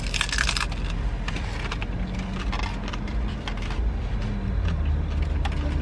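Crunching bite into a crispy fried beef taco shell at the very start, then chewing with scattered smaller crunches, over a steady low rumble.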